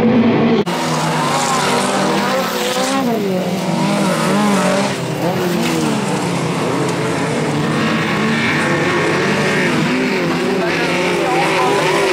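Engines of several autocross touring cars revving hard and falling back as they race on a dirt track, several engine notes overlapping and rising and falling in pitch. There is an abrupt cut in the sound about half a second in.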